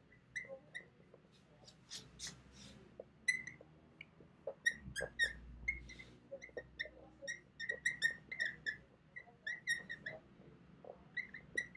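Dry-erase marker squeaking on a whiteboard while writing: many short, high squeaks in quick runs, mixed with a few scratchy strokes.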